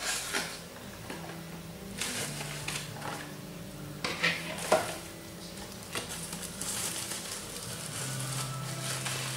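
Plastic wrapping and cardboard packaging rustling and crinkling in irregular bursts as a gaming mouse and its cable are unpacked, over a faint steady low hum.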